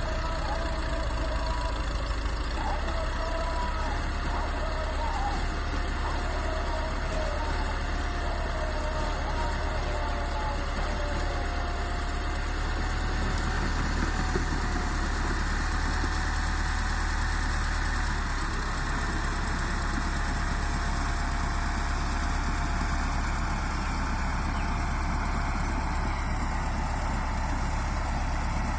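Bulldozer's diesel engine running steadily, with a whine that wavers at first and then holds one pitch.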